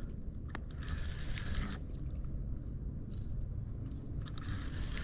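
Wind rumbling on the microphone, with irregular crackling and rustling close to it.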